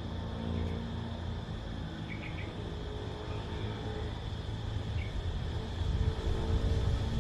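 Steady high drone of cicadas with a few short bird chirps, over a low rumble and the hum of a distant engine that fades and returns.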